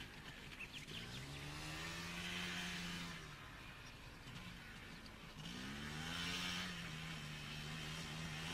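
Quad bike engine revving up and holding speed, dropping off about three seconds in and revving up again a couple of seconds later, over a steady hiss.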